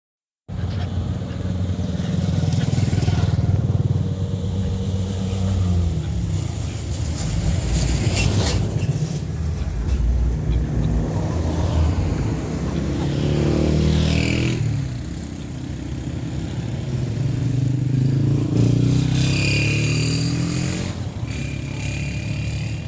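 Motor vehicle engines running and changing pitch, loud and continuous, with a brief high tone twice.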